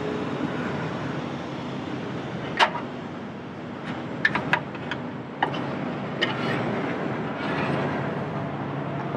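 A thin metal fuel pickup tube is worked down into the fitting on top of an aluminium truck fuel tank, giving a few short, sharp metallic clicks and taps, the loudest a few seconds in. A steady low rumble runs underneath.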